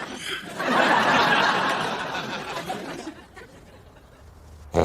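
Sitcom studio audience laughing, swelling about half a second in and dying away by about three seconds, then a lull. Right at the end a loud snore sets in.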